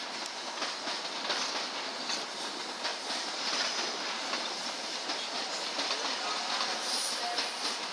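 A train running over pointwork, its wheels clacking irregularly over the rail joints against a steady rushing noise.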